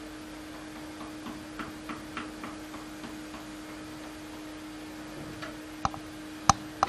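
Faint tapping and clicking from the controls of a Casio CTK-4400 portable keyboard being worked between voices: a run of soft ticks, then three sharper clicks near the end, over a steady low hum.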